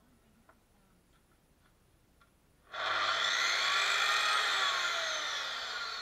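Mafell KSP 85 circular saw switched on a little before halfway, its motor and blade spinning up fast to a high whine. The trigger is then let go and the pitch falls as the blade coasts down. It is run free without cutting, as a test that the newly fitted power connector works.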